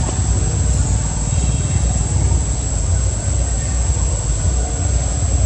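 Steady, loud low rumble of outdoor background noise with a thin, constant high whine over it.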